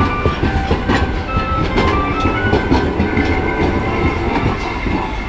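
Toyama city streetcar running past at close range: a steady low rumble of motor and wheels, with the wheels clacking over the rail joints.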